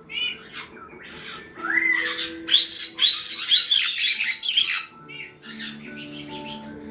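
Caique parrots squawking, with a run of about four loud, arched screeches in the middle. Music with held notes plays underneath.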